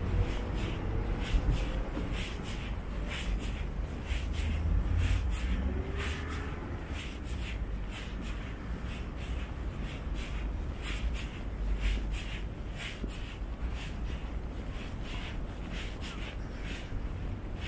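Footsteps of someone walking on an asphalt sidewalk, shoes scuffing about twice a second, over a steady low rumble.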